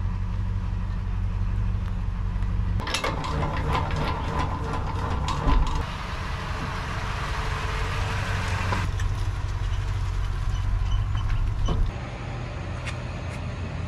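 Toyota Tundra pickup's engine running at low speed, a steady low hum. For a few seconds partway through, clicks and hiss run over it.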